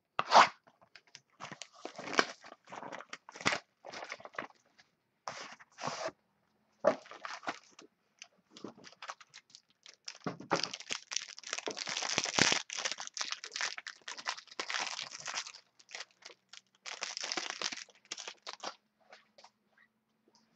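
Plastic wrapping on a box of trading cards crinkling and tearing as it is pulled open by hand, in irregular bursts with a long, dense stretch of crinkling past the middle and a shorter one near the end.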